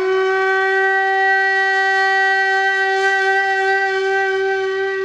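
A wind instrument holding one long, steady note.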